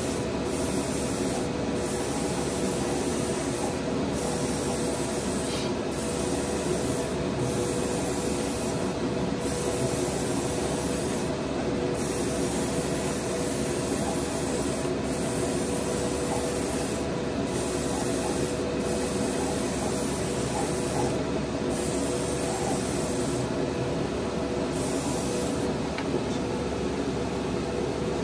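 Gravity-feed paint spray gun hissing steadily as it sprays, with a steady hum underneath.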